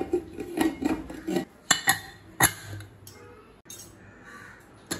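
A series of sharp, irregular metallic clinks and knocks as a steel pressure cooker's lid and vent weight are handled and set in place. The loudest strikes come right at the start and at about two seconds in.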